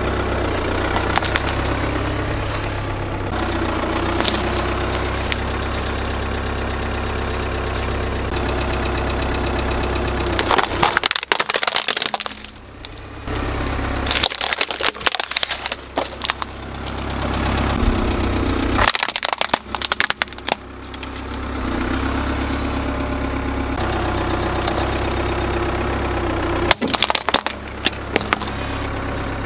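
Car engine running slowly at idle while its tyre rolls over and crushes hard plastic objects and brittle shells, with several bursts of sharp cracking and crunching. The steady engine hum breaks off briefly twice.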